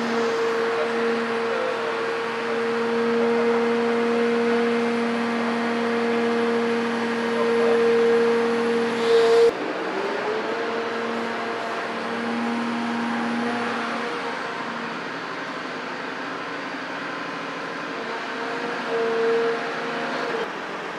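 Cat 336F demolition excavator's C9.3 diesel engine running under load, with a steady hydraulic whine as the long-front boom works. About halfway through, the sound drops abruptly and the whine breaks and glides back in.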